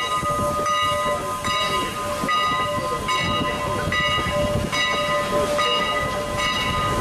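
Steam locomotive's bell ringing steadily, struck a little more than once a second, over the rumble and steam hiss of the 2-6-0 Mogul locomotive running.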